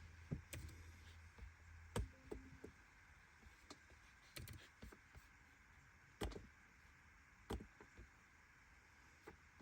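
Near silence with a faint low hum and about ten scattered soft clicks and knocks, the loudest about two seconds in and again near six and seven and a half seconds in.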